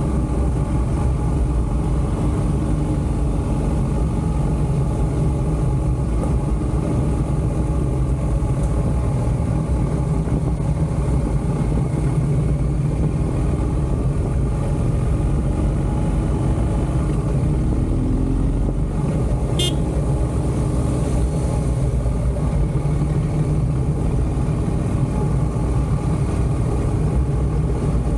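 BMW motorcycle running steadily on the move along a road, with a level low engine and road drone. A single short sharp click about two-thirds of the way through.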